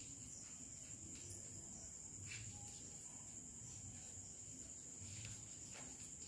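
Faint scratching and tapping of chalk on a blackboard as words are written, under a steady, high-pitched insect trill.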